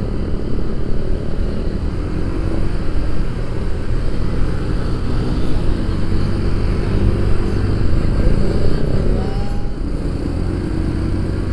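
A motorcycle engine running steadily under way, heard from the rider's own bike, with a steady low drone of engine, wind and road noise.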